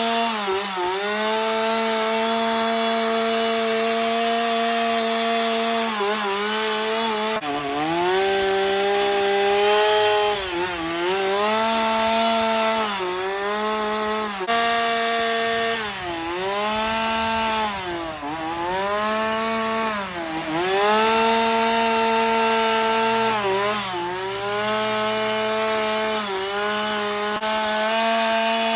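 Chainsaw cutting into a log to carve a bear. The engine runs at high revs, and its pitch drops and recovers again and again as the chain bites into the wood.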